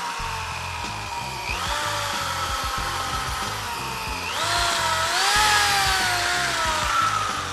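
Handheld power buffer running on a headlight lens: its motor whines, with the pitch sagging and then climbing quickly twice, about a second and a half in and again past four seconds, as the speed changes under the trigger and the load.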